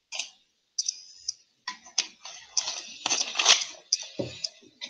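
Irregular clicks and rustling coming over a video call's audio, with silent gaps between them; the sounds come thicker and louder from about two seconds in.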